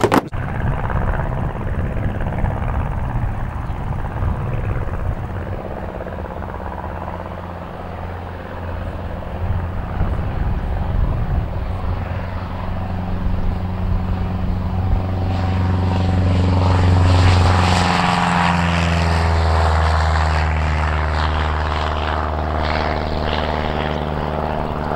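Single-engine propeller light aircraft running at high power on its takeoff run and climb-out, a steady engine-and-propeller drone. It grows louder to a peak about two-thirds of the way through as the plane passes, and its pitch drops slightly as it goes by and climbs away.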